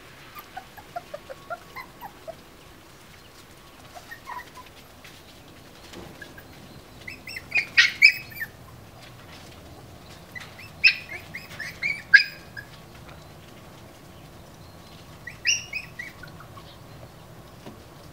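Finnish Lapphund puppies squeaking and yelping in short, high-pitched bunches: a soft falling run of little squeaks at first, then three louder bursts of several yelps each.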